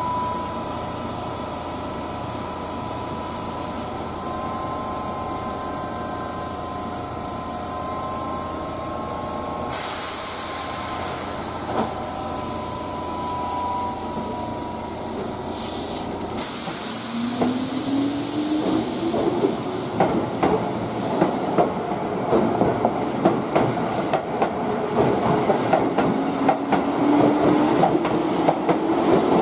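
Keihan 8000-series electric train standing with a steady hum, a hiss of air from about ten seconds in that stops suddenly a few seconds later, then pulling away. As it accelerates, the traction motors' whine rises in pitch and the wheel clicks over the rail joints come faster and faster.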